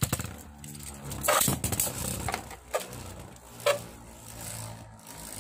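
Two Beyblade Burst spinning tops whirring steadily in a clear plastic bowl, with sharp clacks as they collide, loudest about a second in and again nearly four seconds in.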